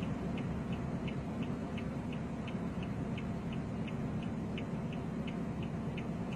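Car turn-signal indicator ticking evenly, about three ticks a second, over the low rumble of the moving car.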